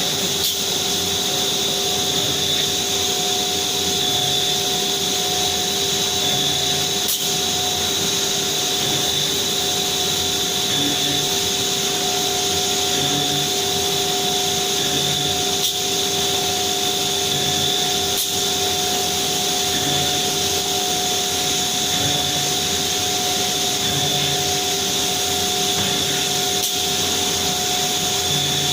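CNC router spindle running, a steady high whine over an even rush of noise, with a few faint ticks.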